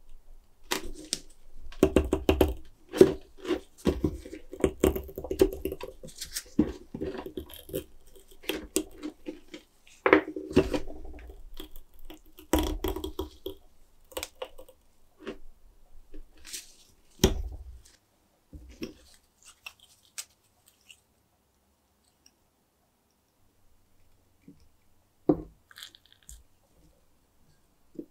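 An old rubber gasket being pried and peeled out of the groove of a cast metal lamp ring by nitrile-gloved hands, giving irregular crackling, squeaking and rubbing, with sharp clicks of a screwdriver against the metal. The handling thins out after about fourteen seconds, leaving a few scattered clicks and one knock near the end.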